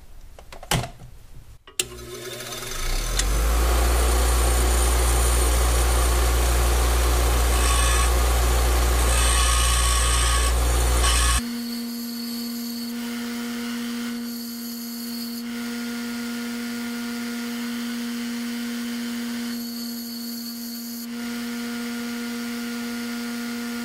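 Bench grinder running while a high-speed steel tool bit is ground on its abrasive wheel: loud, continuous grinding over a low motor hum. About eleven seconds in the sound drops abruptly to the steadier, quieter hum of the motor, with a few short touches of steel on the wheel.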